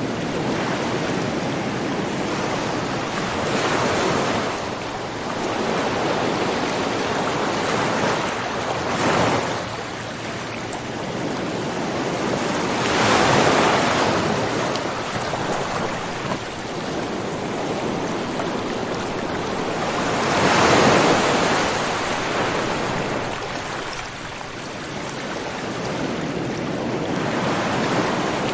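Ocean surf: a continuous rush of water that swells and recedes every few seconds as waves break, with the biggest swells near the middle and about two-thirds of the way through.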